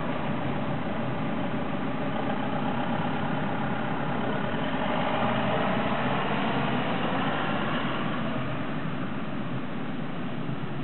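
Rolling-highway freight train carrying lorries on low-floor wagons passing at steady speed: a continuous noise of wheels running on the rails, swelling slightly midway.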